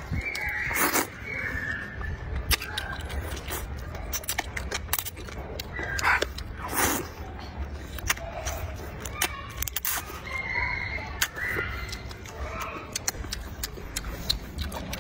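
Spicy rice noodles being slurped and chewed. There are long sucking slurps about a second in and again around six to seven seconds, with many short wet smacks and clicks of eating in between.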